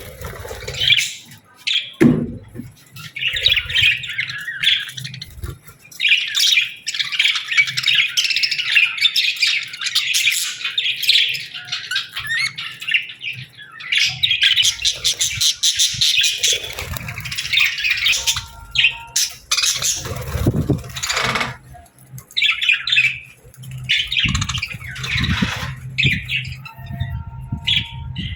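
Budgerigars chirping and warbling in fast chattering bursts that stop and start every few seconds, with a few low thumps among them.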